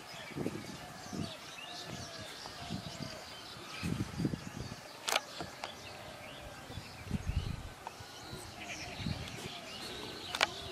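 Birds chirping and calling in the background, with scattered low muffled sounds and two sharp clicks, one about halfway through and one near the end.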